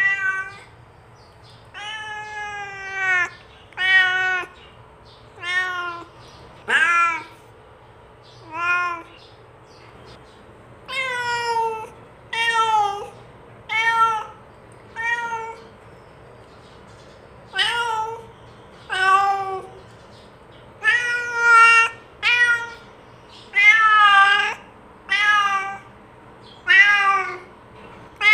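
Domestic cat meowing over and over, about one call every second and a half. Each meow rises and falls in pitch, and a few are drawn out longer and wavering.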